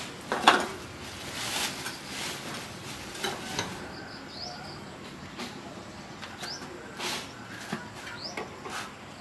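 Scattered clinks and knocks of a wrench and metal parts being handled on a motor scooter, the loudest about half a second in. A bird gives three short rising chirps in the background.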